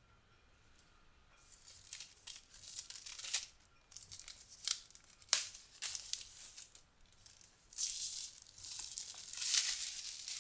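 Tear strips being pulled off a MacBook Air's retail box: a series of dry ripping sounds with a few sharp snaps, starting about a second and a half in.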